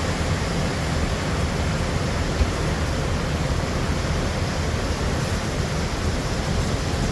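Steady rushing of falling water from a waterfall: a constant even roar with no pitch to it, and one brief tap about two and a half seconds in.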